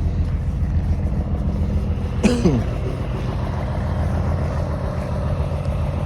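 Semi truck's diesel engine idling steadily, a Freightliner Columbia with a Detroit Series 60. About two seconds in there is a brief sharp chirp that slides quickly down in pitch.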